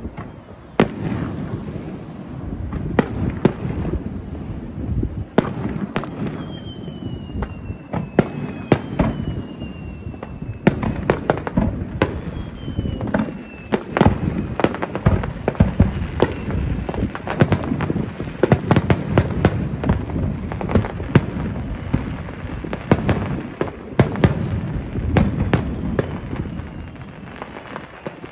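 Aerial firework shells bursting in quick succession: sharp bangs over a continuous rumble and crackle. In the first half, a few whistles slide down in pitch.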